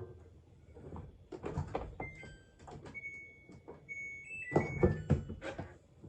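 Clunks and clicks of a Samsung washing machine being handled, with several short electronic beeps in the middle, some stepping in pitch, typical of its control panel responding to button presses.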